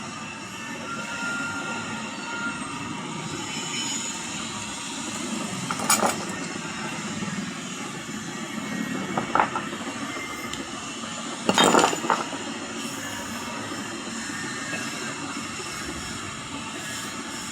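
A few sharp clicks and knocks of hands working wires and a fan capacitor into place, the loudest a double knock about two-thirds of the way through, over steady background noise.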